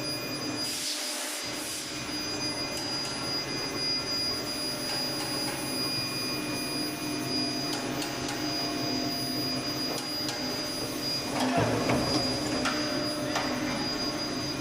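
A 300 kVA tunnel induction heating machine running with a steady hum and a high, thin whine, over workshop machine noise with scattered clicks. A louder rushing clatter comes about eleven and a half seconds in.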